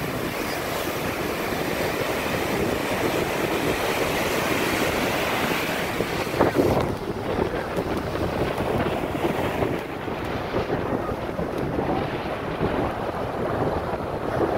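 Ocean surf breaking and washing up on a beach, mixed with wind buffeting the microphone; a brief loud hit about six and a half seconds in.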